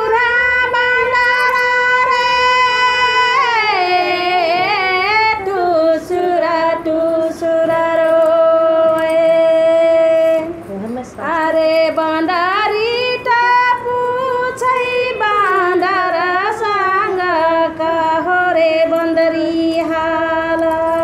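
A woman singing solo in two long phrases. Each opens on a high held note, winds through quick wavering ornaments and settles on a long, lower held note, with a short break for breath about halfway through.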